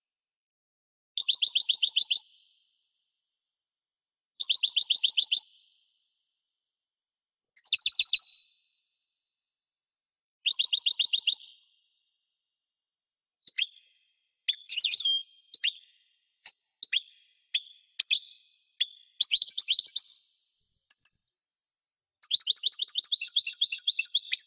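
European goldfinch singing: four similar trilled phrases about three seconds apart, then a quick run of short varied twittering notes, ending in a long trill.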